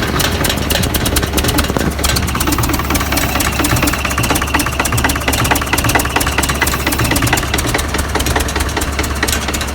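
Bulldozer's diesel engine running with a steady, fast knocking clatter, cold after standing unused for a month.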